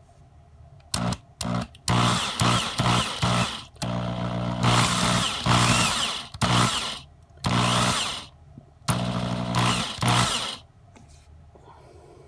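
Electric drill drilling out the post that holds the glass in a diecast toy car body, the motor running in repeated short bursts, switched on and off about seven times.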